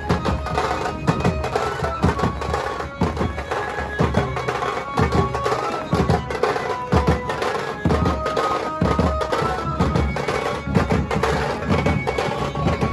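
A street banjo party band playing a Hindi film tune: an amplified melody line of held notes over loud, fast, driving drumming.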